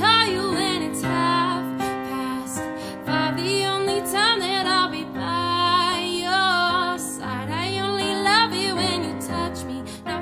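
Background music: a woman singing a slow song over sustained accompaniment.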